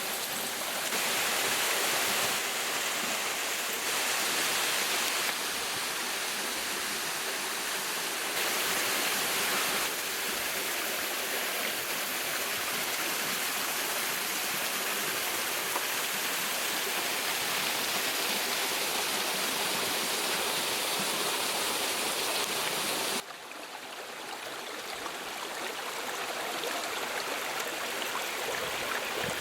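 Waterfall water rushing in a steady, full hiss. The level jumps abruptly several times and drops suddenly about three-quarters of the way through.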